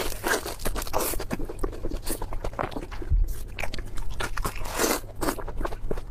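A person biting and chewing food close to the microphone, with many quick, irregular wet mouth clicks and smacks.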